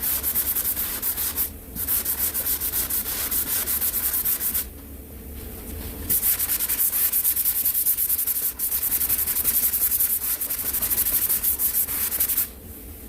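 Hand block-sanding of cured body filler on a car panel: sandpaper on a sanding block rubbed in quick, regular back-and-forth strokes. The strokes pause briefly twice, once for over a second.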